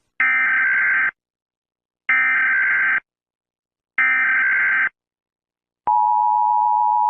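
Emergency Alert System SAME data bursts: three harsh digital warbles of about a second each, a second apart. About six seconds in, the steady two-note EAS attention tone begins.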